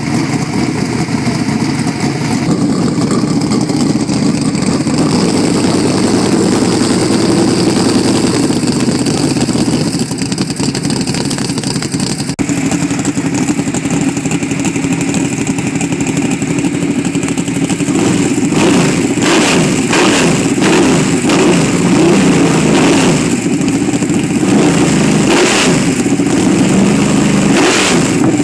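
A methanol-fuelled 470-cubic-inch big-block Chevrolet V8 in a supermodified race car idles loudly through open header pipes. In the second half it runs a little harder, with several short sharp sounds.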